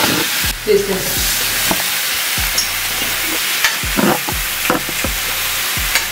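Thin slices of beef sizzling as they are laid one by one into a hot frying pan, with a few short knocks from handling at the pan.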